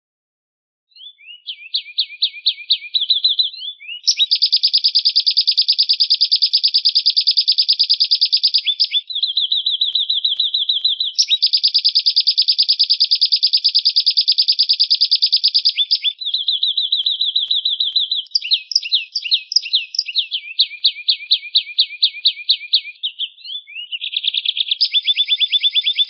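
Lovebird 'ngekek panjang' song: long, rapid, high-pitched chattering trills of repeated shrill notes, some stretches running about five seconds unbroken, with shorter choppy runs between, starting about a second in.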